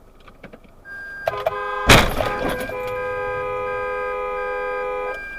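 A held multi-note horn blares, with one loud crash about two seconds in. The horn goes on steadily and stops shortly before the end.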